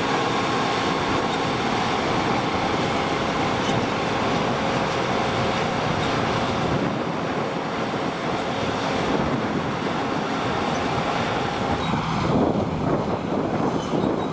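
Harvesting machinery running steadily under load, a dense mechanical noise with a thin high whine above it. About twelve seconds in the sound changes abruptly to a rougher, deeper running noise.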